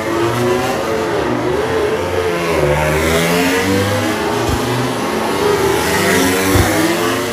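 Several MotoGP bikes' 1000 cc four-cylinder racing engines revving on the starting grid, overlapping throttle blips rising and falling in pitch. Two short dull bumps come partway through.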